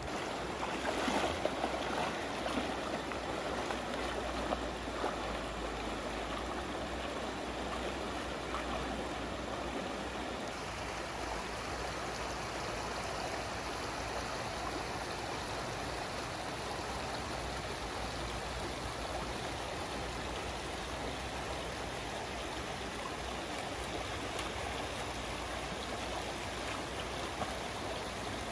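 Shallow river water flowing and rippling over a riffle, a steady rushing wash. It is louder and more uneven for the first few seconds.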